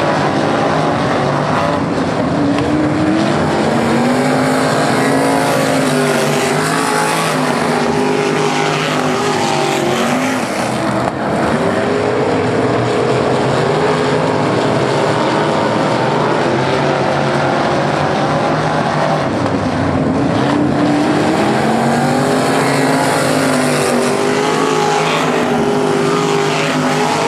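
Traditional (non-winged) sprint car engines racing on a dirt oval. The engine notes rise and fall in pitch every several seconds as the cars lap the track.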